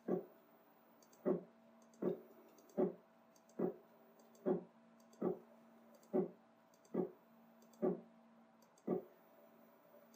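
WorkBee CNC machine's Z-axis stepper motor making short single-step jog moves: a brief low click-buzz about every 0.8 seconds, twelve in all, as the bit is lowered 0.1 mm at a time to find the top of the material.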